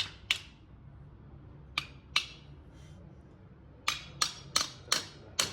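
Hammer striking metal in sharp, ringing blows: two at the start, two about two seconds in, then five quick strikes near the end.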